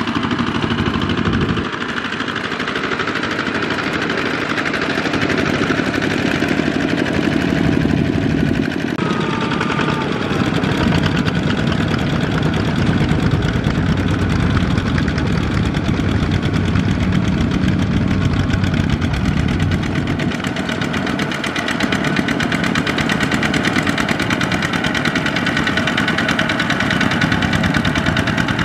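Single-cylinder diesel engine of a Kubota two-wheel walking tractor running steadily under load as it hauls a loaded trailer through deep mud.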